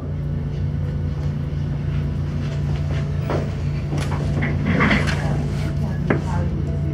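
Steady low hum of room noise, with scattered knocks and rustles of handling on a desk and a sharp click as a mobile phone is picked up about six seconds in.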